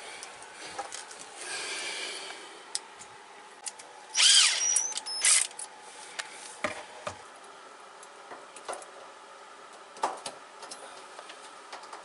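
Cordless drill-driver motor whirring in short bursts, the loudest about four seconds in and again a second later, among clicks and rattles of dryer parts being handled.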